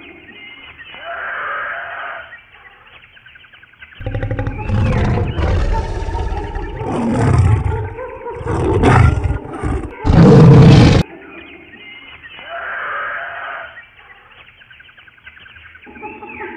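Big-cat roar and growl sound effects: a run of growls begins about four seconds in and builds to the loudest roar, which cuts off suddenly. A quieter steady background bed comes before and after.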